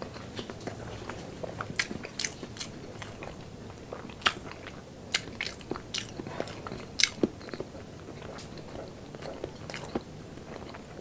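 Close-miked chewing of a full mouthful of food, with scattered wet mouth smacks and clicks at irregular intervals.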